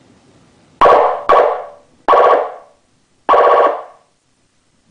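Sho-Me dash-mount siren amplifier's electronic air horn: four short blasts of a steady horn tone, each starting abruptly and fading away, the first two close together.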